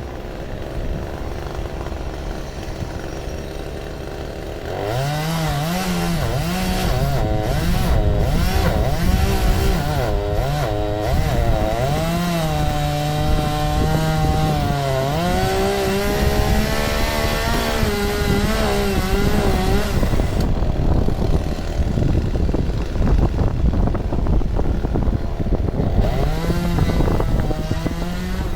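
Two-stroke chainsaw running, its engine speed rising and dipping repeatedly as it works through wood from about five seconds in. About twenty seconds in it eases back to a lower, duller run, then picks up briefly again near the end.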